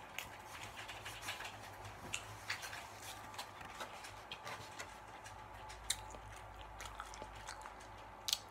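Faint, scattered clicks and creaks of a styrofoam takeout container being handled and food being scooped from it with a plastic spoon. A sharper click comes near six seconds and another near the end.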